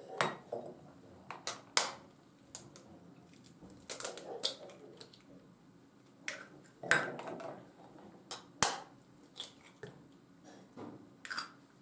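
Eggs being cracked open with a knife over a plastic mixing bowl: a series of sharp taps and cracks, a second or more apart, as the blade strikes and splits the shells.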